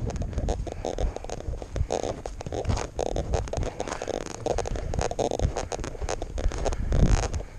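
Footsteps crunching through snow, with wind buffeting the microphone.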